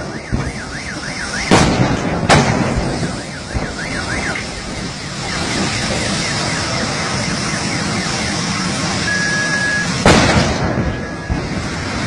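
Gas cylinders exploding in a vehicle fire: two loud blasts about a second and a half and two and a half seconds in, and another about ten seconds in, over the steady noise of the fire. A car alarm warbles near the start and again around three to four seconds in.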